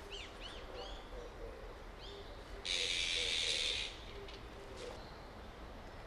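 Azure-winged magpies calling: short quick chirps in the first second and again around two seconds in, then a loud harsh hissing rasp lasting about a second.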